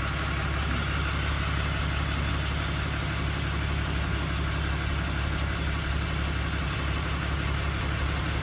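A vehicle engine idling steadily with a low, even rumble.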